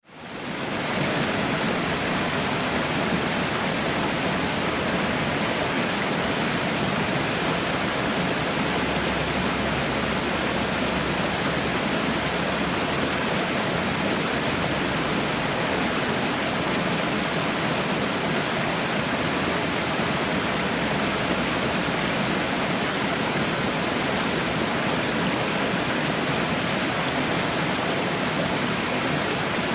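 Waterfall rushing in a steady, even roar of falling water. It dips almost to silence for a moment at the very start, then comes straight back.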